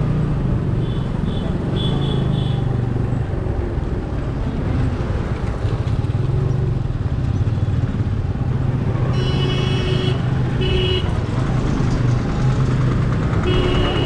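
Motorcycle engine running at road speed with wind and road noise. A vehicle horn honks twice, about nine and ten and a half seconds in, and again near the end.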